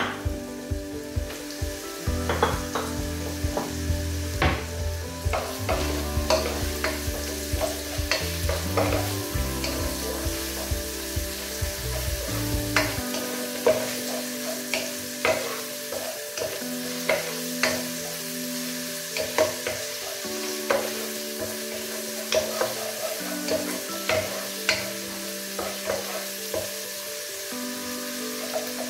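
Chopped onions, garlic and ginger sizzling as they fry in hot oil in an enamel pot, with a wooden spoon stirring and knocking against the pot in frequent sharp clicks.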